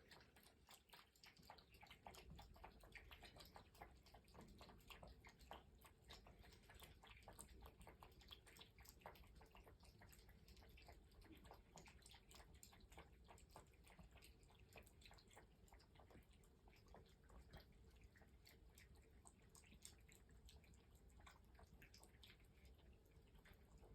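Cats chewing their food: faint, rapid, irregular crunching clicks.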